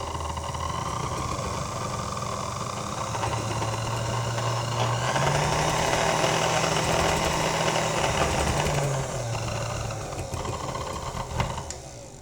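1941 Sunbeam Mixmaster Model 7 stand mixer running with a steady motor hum, a little rough. Its pitch steps up about five seconds in and drops back near nine seconds, then it winds down after a click near the end.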